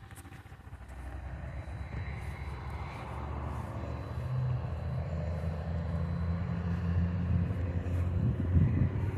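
Engine of a large vehicle running low and steady, getting steadily louder as it comes closer.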